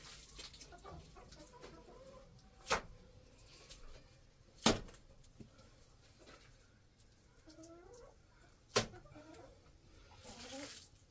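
Three sharp knocks, the loudest sounds, about three, five and nine seconds in, with faint short animal calls in the second half.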